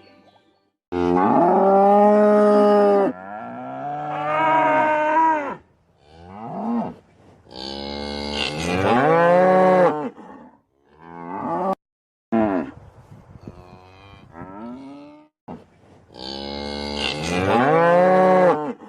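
Cattle mooing: a string of about eight moos, three of them long and loud, the others shorter and quieter, with short pauses between.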